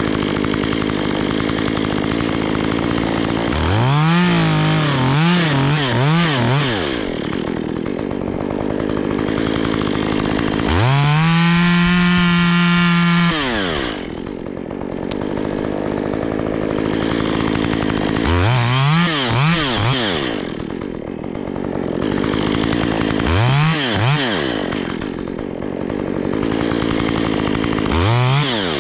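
Chainsaw idling between repeated bursts of throttle. It gives a few quick revs, then holds full throttle for about three seconds near the middle, then gives several more short revs.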